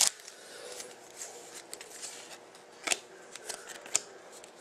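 Trading cards handled and slid against one another as a freshly opened pack of hockey cards is sorted through, a soft rustle with a couple of sharper clicks about three and four seconds in.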